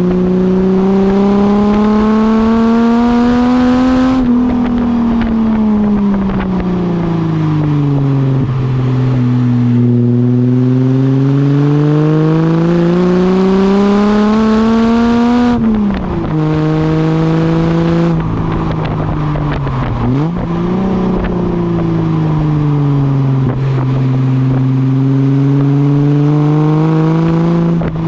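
Ford AU Falcon's straight-six engine through Pacemaker extractors, a high-flow cat and a 2.5-inch catback exhaust with centre muffler, revving up and easing off again several times. The pitch drops suddenly just past halfway and again near the end.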